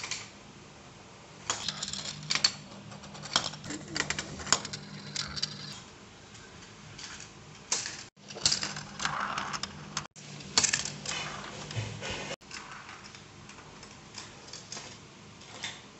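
Marbles rolling through a GraviTrax plastic marble run: irregular clicking, rattling and clacking as they run along the rails and knock through the plastic curves and landing pieces. The clatter comes in two busy spells, the first starting about a second and a half in and the second from about halfway to three-quarters through, with only a few scattered clicks after that.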